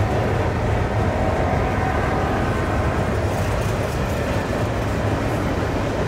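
Double-stack container cars of a CN intermodal freight train rolling past, with a steady noise of steel wheels on the rails.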